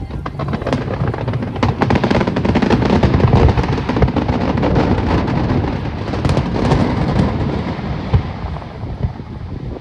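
Fireworks display: a rapid, dense volley of bangs and crackles, loudest a few seconds in and thinning out toward the end.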